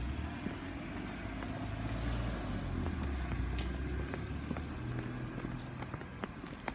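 Small hatchback car driving away up the lane, a low engine-and-tyre rumble that fades out about four and a half seconds in.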